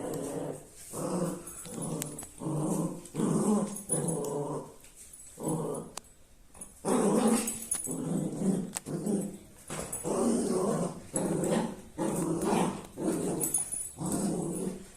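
Dog barking again and again, about a dozen barks, with a short pause near the middle.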